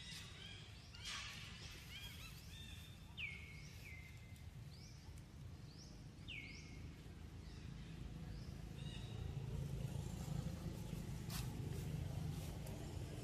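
Short, high animal calls, each falling quickly in pitch, repeated several times about a second apart and once more near the end, over a low steady rumble that grows louder in the second half.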